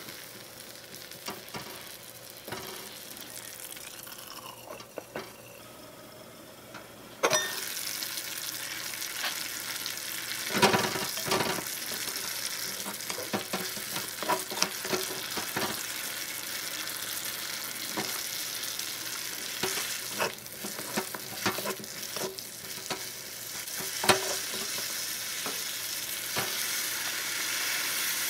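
Vegetables sizzling in a miniature aluminium wok while a wooden spatula stirs them, scraping and tapping against the pan. The sizzle jumps suddenly louder about seven seconds in.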